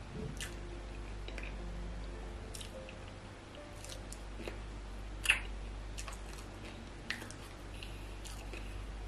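Close-up mouth sounds of a person eating catfish pepper soup: chewing and sucking the flesh off a bony piece of catfish, with scattered wet smacks and clicks, the sharpest a single click about five seconds in. A low steady hum lies underneath.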